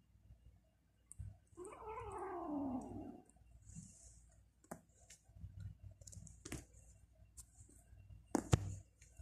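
A cat meowing once, a drawn-out call falling in pitch, about a second and a half in. A few sharp clicks and knocks follow, the loudest near the end.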